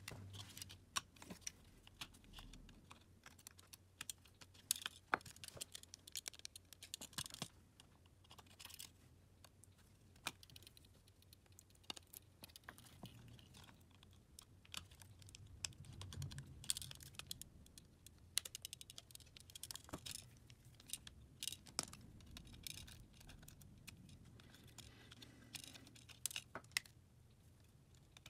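Irregular small clicks, taps and scrapes of hand tools and small phone parts being handled during a smartphone screen replacement.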